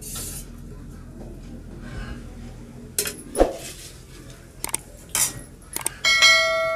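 Steel utensils clinking and knocking: a spoon and steel plate handled several times. About six seconds in comes the loudest sound, a bell-like chime of several tones that rings on, the sound effect of an on-screen subscribe-bell animation.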